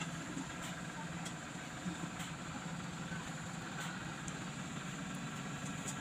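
Steady low background hum with a few faint soft clicks from raw squid being pulled apart and cleaned by hand on a cutting board.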